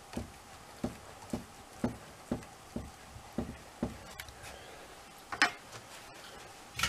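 Sony CDP-110 CD player's plastic disc mechanism being rolled back by hand: a row of light clicks, about two a second, then two louder knocks near the end.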